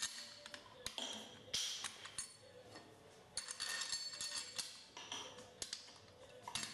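Small steel nuts clinking and tapping against the stainless tapping clamp and its threaded studs as they are handled and started on by hand: a run of irregular light metallic clicks, each with a short ringing tail.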